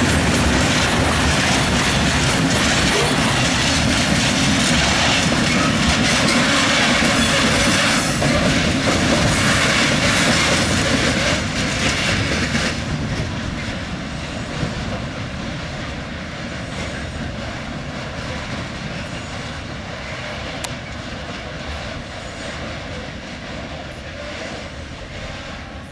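Freight train of covered hopper wagons rolling past, its wheels running steadily on the rails. The sound is loud for about the first half, then drops off suddenly and fades as the last wagons move away.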